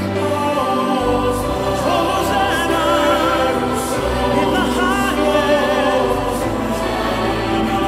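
Christian worship song playing: a choir singing, with a voice holding long notes with vibrato over it.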